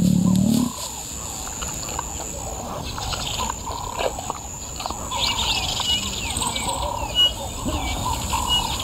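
Wild birds chirping and calling repeatedly in the bush, the calls growing busier about halfway through.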